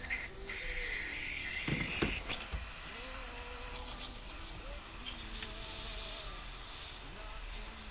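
Leftover R134a refrigerant hissing out of an Audi A4 B6's air-conditioning line as the fitting is loosened. It is strongest for the first two seconds or so, then keeps hissing more faintly. There is a knock about two seconds in. This is the residual gas charge, which the owner takes to be the likely reason the compressor was still engaging.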